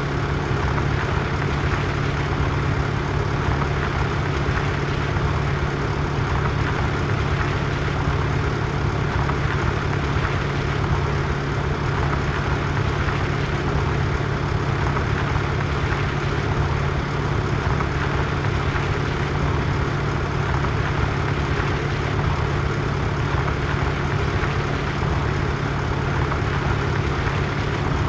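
Tractor's diesel engine running steadily, a constant low drone that holds the same speed throughout.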